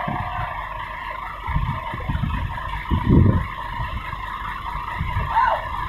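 Heavy diesel engine running, with a steady high whine over a low rumble that swells twice in the first half.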